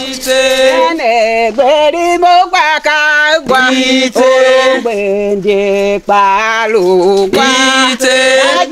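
A single voice singing a chant-like melody, with long held notes that waver and glide between pitches, broken by short breaths.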